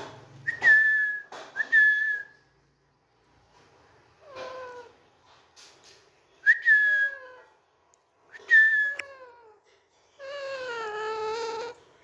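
Alexandrine parakeet calling: about five short, shrill calls, each falling away in pitch at the end and spaced a second or two apart, then a longer wavering call near the end.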